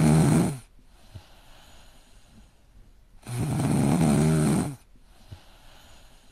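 A sleeping cat snoring: two loud snores, the first fading out about half a second in and the second about three seconds in, lasting a second and a half, with faint breathing between.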